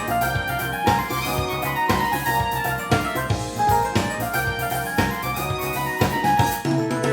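Recorded music played back through a Linn Klimax Twin hi-fi system for a sound demo: keyboard melody over a bass line, with a strong drum hit about once a second.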